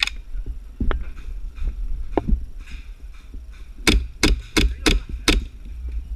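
Airsoft gun firing five sharp shots in quick succession about four seconds in, over steady rumbling and handling noise from the player moving with the camera, with a couple of single knocks earlier.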